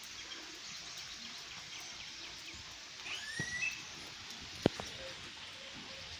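A smooth-billed ani gives one rising, whistled call about three seconds in, over the steady hiss of light rain. There is a single sharp tap a little later.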